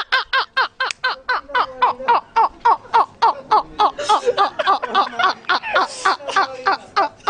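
Men laughing hard: an unbroken run of 'ha-ha' bursts, about five a second.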